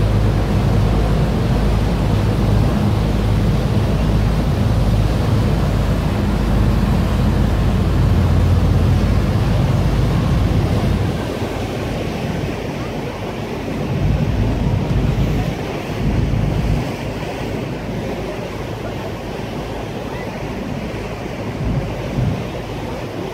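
A boat under way on a river: a low, steady engine drone with water rushing and wind buffeting the microphone. The engine drone drops away about halfway through, leaving mostly wind and water.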